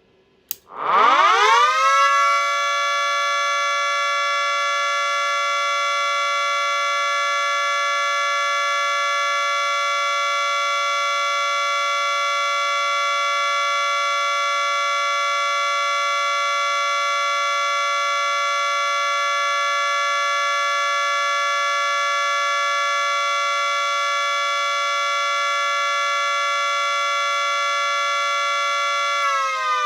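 Miniature 2T22A two-tone siren, run without its horns, clicks on and winds up within about two seconds to a loud steady two-tone chord. It holds that steady tone, the Alert signal, for nearly half a minute, and begins to wind down at the very end.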